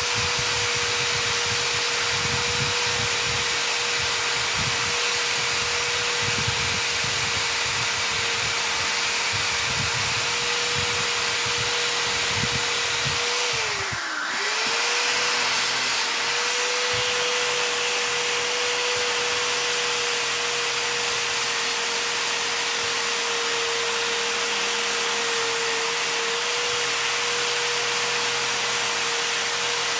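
Handheld electric grinder running steadily with a high whine, its pitch sagging for about a second midway as the motor slows and then spinning back up. An uneven low rumble runs through the first half.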